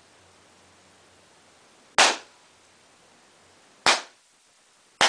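Three balloons bursting with sharp pops, each as a 5 mW green laser beam burns through it: one about two seconds in, the next about two seconds later, and a third right at the end.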